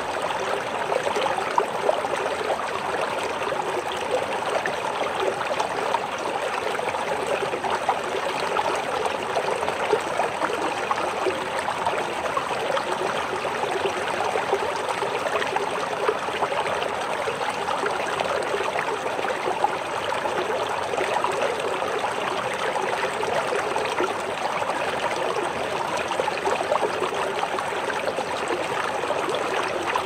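River water flowing: a steady, even rush of moving water with no breaks or changes.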